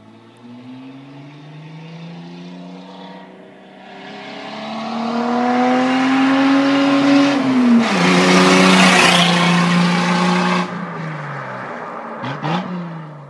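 1977 Datsun 280Z's straight-six on straight pipes accelerating hard toward and past the listener. The engine note climbs in pitch, dips briefly, climbs again, then drops and is at its loudest as the car passes close, before cutting off abruptly.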